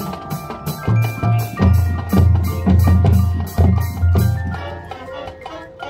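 Marching band playing its field show music, with the percussion beating out a steady rhythm over bass notes and held tones. It grows softer near the end.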